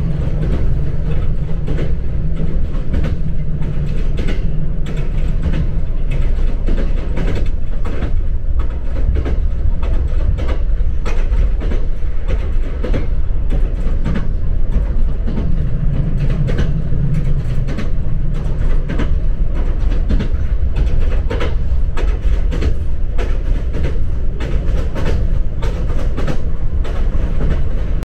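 Ride noise inside a moving electric train carriage: a steady low rumble with frequent irregular clicks and rattles from the wheels and car body. A low hum swells near the start and again about halfway through.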